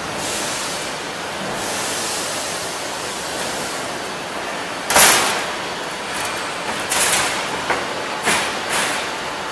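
HVAC duct auto line machinery running with a steady mechanical noise, broken by short sharp bursts of hiss: one loud burst about halfway, then three smaller ones close together near the end.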